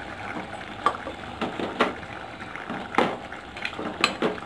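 Metal ladle stirring a thick chicken curry in an aluminium pot, knocking and scraping against the pot several times over a steady background hiss.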